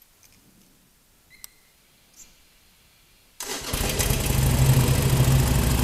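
Harley-Davidson Sportster SuperLow 883's air-cooled V-twin being started. First near quiet with a couple of faint clicks as the ignition is switched on, then about three and a half seconds in the engine fires and runs loud and steady at idle.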